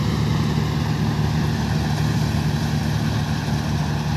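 Kartar 4000 combine harvester running steadily while cutting wheat: a constant diesel engine drone with a noisy hiss above it that holds even throughout.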